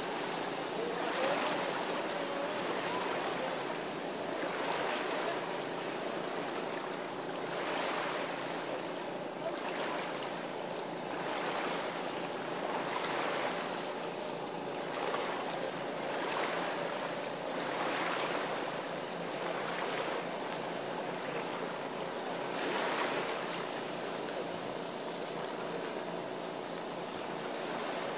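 Steady rush of water that swells and eases every second or two, with a faint steady hum underneath.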